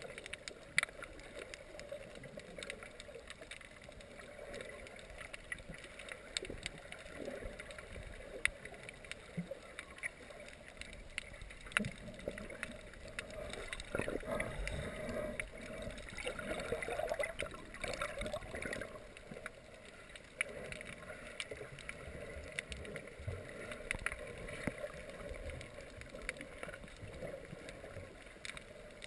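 Muffled underwater sound heard through a GoPro's waterproof housing: water swishing and gurgling with scattered sharp clicks and crackles, swelling a little in the middle.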